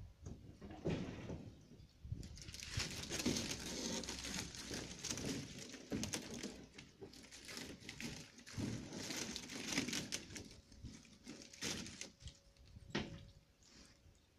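Plastic roofing sheet crinkling and crackling as it is pulled and handled, in an uneven run of rustles and small snaps that fades out near the end.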